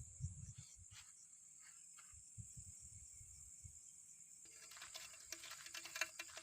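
Faint steady high-pitched drone of night insects, likely crickets, with a few soft knocks. About four and a half seconds in, faint steady music-like tones with rapid ticking join in.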